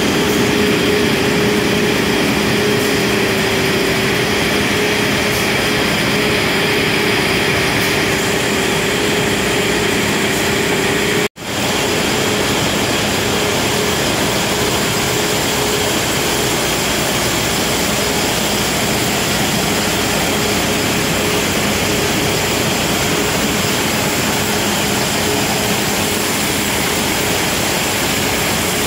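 Can-plant machinery and can conveyors running: a loud, steady industrial din with a constant hum. The sound drops out for an instant about eleven seconds in.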